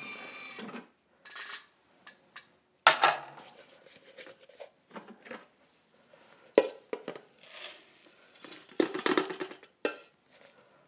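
Thermomix stainless-steel mixing bowl being unlocked, lifted out and tipped to empty freshly ground spelt meal into a plastic bowl: scattered metallic knocks and clatters, the sharpest about 3 and 6.5 seconds in, with a rustling stretch of meal sliding out near the end.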